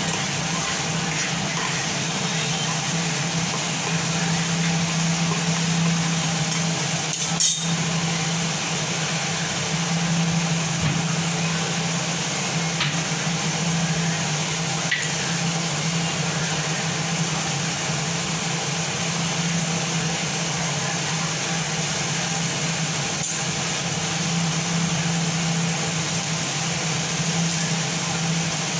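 Steady mechanical hum with a hiss over it, as of a kitchen fan or burner running, while a gravy simmers in a steel pan. A single sharp metal clink comes about seven and a half seconds in, with a few fainter clicks later.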